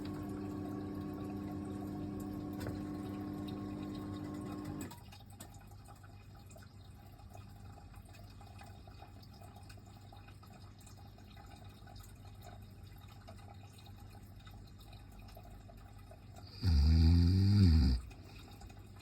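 A baby snoring: one loud snore of just over a second near the end. Before it, a steady hum cuts off suddenly about five seconds in, leaving faint room noise.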